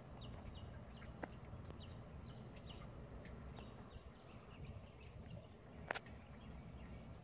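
Faint outdoor ambience: a low steady rumble with scattered faint high ticks and chirps, a small click a little over a second in, and one sharp knock about six seconds in.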